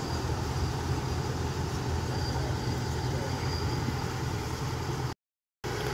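Rice combine harvester's diesel engine running steadily, a low even hum. The sound drops out completely for about half a second near the end.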